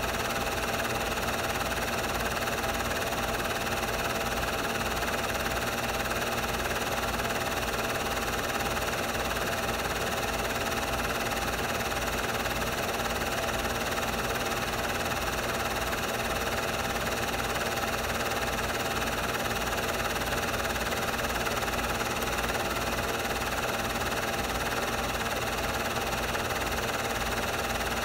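Super 8 film projector running: a steady motor whir with a fast, even mechanical flutter from the film transport, unchanging throughout.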